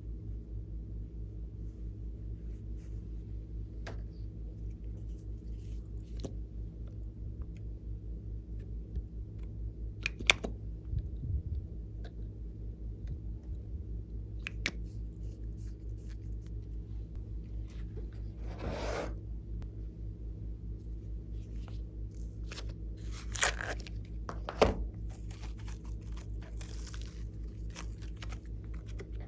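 Slime being squeezed and mixed by hand: scattered small crackles and clicks, with a few louder crunchy, tearing squishes about ten seconds in and again around 19 and 24 seconds. A steady low hum runs underneath.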